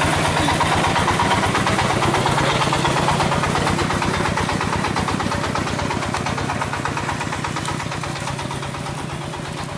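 Single-cylinder dompeng diesel engine running with a fast, even chugging beat, about ten pulses a second, fading slightly near the end.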